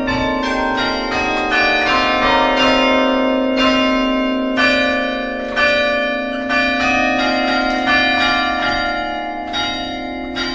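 Church bells ringing: several bells of different pitches struck one after another, about two strokes a second, each ringing on under the next.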